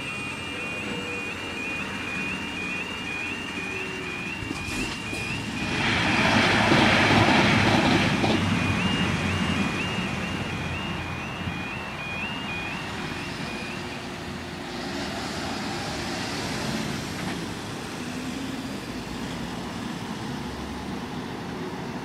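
Level crossing's warbling two-tone warning alarm sounding steadily and stopping about two-thirds of the way through as the barriers rise. A loud passing rush builds about a quarter of the way in and fades, with road traffic running under it all.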